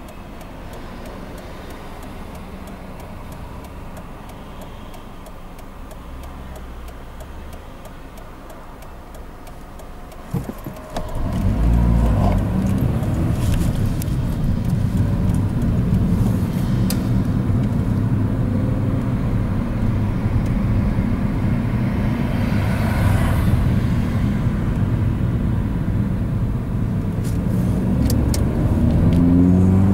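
Car heard from inside the cabin: first a quiet steady low engine idle while stopped, then from about eleven seconds in a sudden jump to much louder, steady engine and tyre/road rumble at high road speed. A brief rushing swell comes in the middle, and near the end the engine note climbs as the car accelerates.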